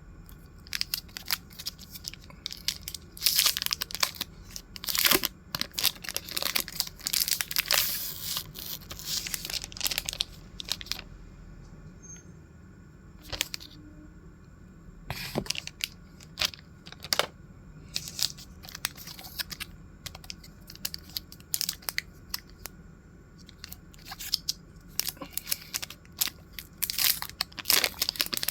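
Stationery packaging being opened and handled by hand: irregular crinkling, tearing and small clicks. The sounds come in busy spells with a quieter stretch in the middle.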